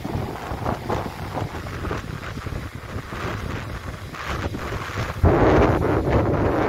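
Wind buffeting the microphone: a steady low rumble that gets clearly louder about five seconds in.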